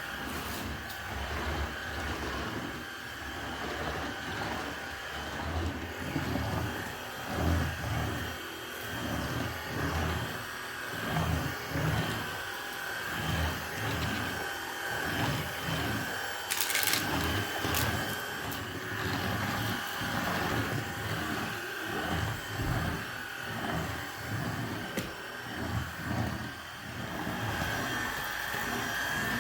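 A small electric motor running steadily with a constant whine, with irregular low thuds beneath it and one sharp click partway through.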